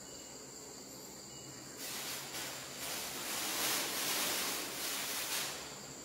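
A thin plastic bag rustling and crinkling as it is handled, from about two seconds in until past five seconds, over a steady high trill of crickets.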